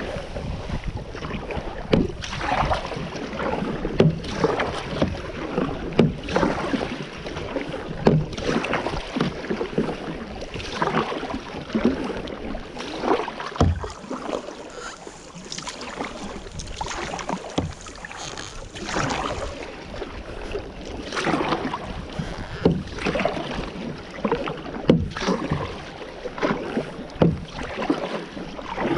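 Kayak paddle blades dipping into and pulling through the water, a splash about every one to two seconds, over water rushing and lapping along the hull.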